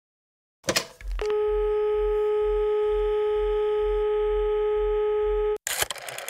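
A click, then a steady telephone dial tone that cuts off suddenly about five and a half seconds in, followed by a quick run of clicks from a rotary phone dial being turned.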